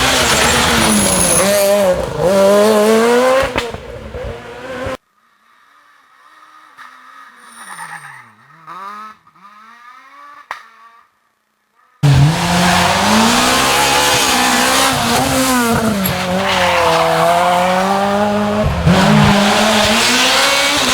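Rally car engines driven hard: revs climbing and dropping through gear changes. About 5 s in the sound cuts to a fainter car whose revs rise and fall, and about 12 s in it cuts back to a loud, close car revving up and down.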